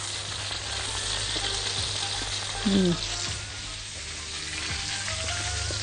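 Beef broth boiling in a frying pan with caramelised onions, mushrooms and steak slices, a steady sizzling hiss. The broth is deglazing the pan and reducing into a sauce. A brief voice sound comes just before the middle.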